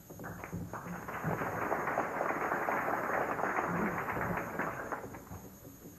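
Audience applauding, building up over about a second and fading away near the end.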